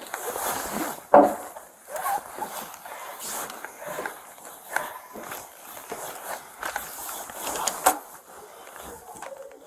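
Footsteps and rustling of someone walking through a house, with a sharp knock about a second in and another near eight seconds.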